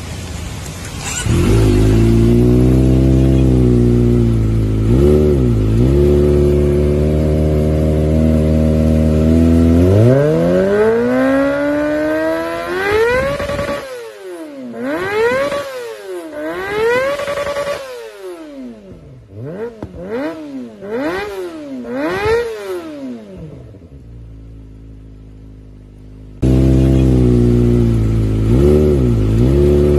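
Kawasaki ZX-25R's 249 cc inline-four engine through an Akrapovič slip-on exhaust, idling and then revved. About ten seconds in it climbs in one long rise to a high-pitched scream, then goes through a string of quick throttle blips, each rising and falling. It drops back to a quieter idle, and near the end there is a sudden jump to a louder idle with one more short blip.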